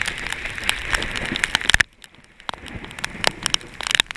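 Torrential rain, a dense hiss, with raindrops striking the camera close up as sharp clicks. The hiss drops away abruptly about two seconds in, leaving scattered drop hits.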